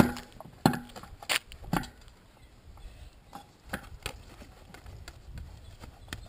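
Trials unicycle hopping on a concrete ledge: sharp knocks as the wheel lands, four loud ones in the first two seconds, then two fainter ones about four seconds in, over low outdoor rumble.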